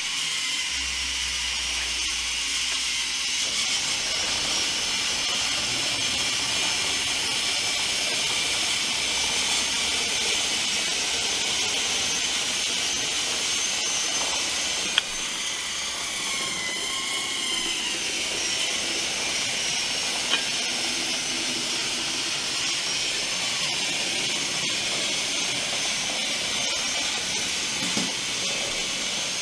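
The two small geared DC drive motors of a tracked robot chassis run with a steady high whine and hiss while it drives. Two sharp clicks come about halfway through, and the whine wavers briefly in pitch just after the first one.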